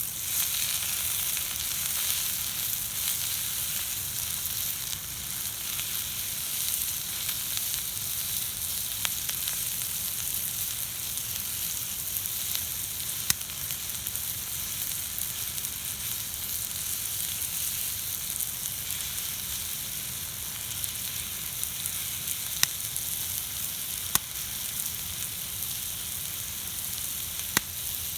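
Food sizzling steadily on a hot steel griddle over a campfire, with a few sharp pops scattered through.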